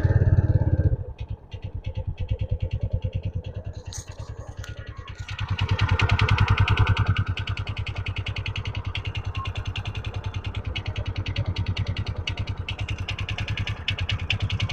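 TVS Ntorq 125 BS6 scooter's single-cylinder engine starting and idling with a rhythmic knocking, revved up once about six seconds in and settling back to idle. The knock sounds like piston slap but is not; the mechanic traces it to a faulty starter one-way clutch.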